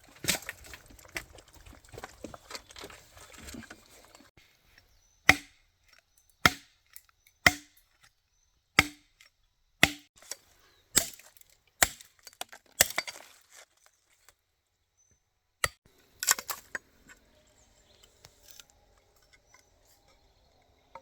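Repeated sharp chopping strikes, about one a second, with a few seconds of rustling before them and a short cluster of strikes later on.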